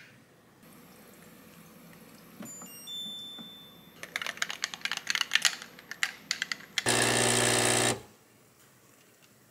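An espresso machine's pump buzzing loudly and steadily for about a second as a shot pours over ice, then cutting off. Before it, a stretch of crackling and clicking comes from ice in a glass as liquid is poured in, preceded by a few short beeps.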